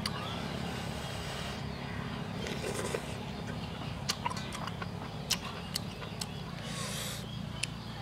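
Soup being slurped and eaten from a spoon, in short noisy slurps with a few sharp clicks in the second half, over a steady low background rumble.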